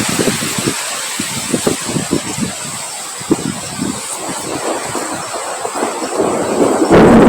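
Wind blowing in irregular gusts, with low rumbling buffeting on the microphone and a steady high hiss; a stronger gust swells up near the end.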